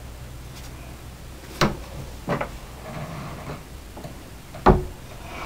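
Small sharp metallic clicks from a bullet jacket and swage die being handled in a Corbin bench swaging press: two light clicks a little over a second apart, then a louder one near the end.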